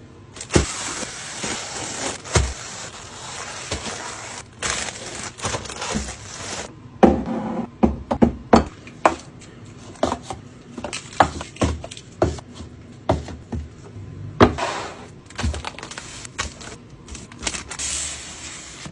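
Food packaging and containers being handled and set down: a steady rustle for the first six seconds or so, then a run of irregular sharp clicks and knocks.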